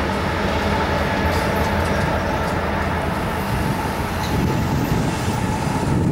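Low rumble of a freight train moving away from a grade crossing, with the crossing's Safetran mechanical bell ringing steadily over it as the gates rise.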